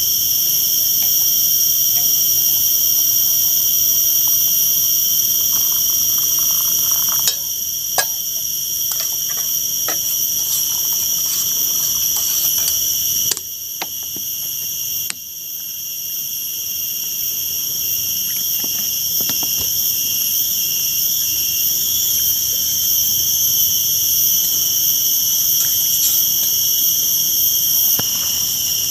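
Loud, steady chorus of forest insects: a high-pitched drone at several pitches at once, with a few faint clicks and knocks around the middle.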